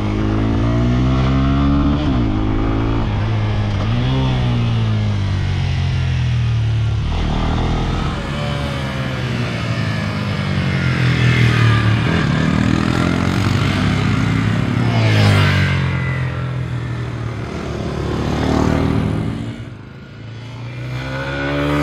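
Bajaj Pulsar N125's 125cc single-cylinder engine being ridden hard around a tight track, its note rising and falling again and again as the bike accelerates and the revs drop. The engine fades briefly near the end, then builds again.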